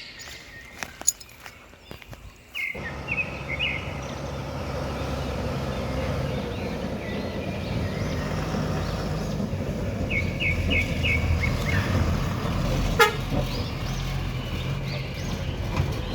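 Heavy diesel construction machinery engine running steadily under load, cutting in abruptly about three seconds in. Short groups of quick high chirps sound over it twice.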